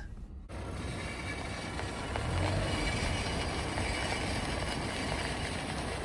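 Front left brake dust shield, bent by a rock, scraping against the brake rotor as the car rolls, mixed with tyre and road noise. The scraping starts about half a second in and keeps up as a steady, loud scraping noise.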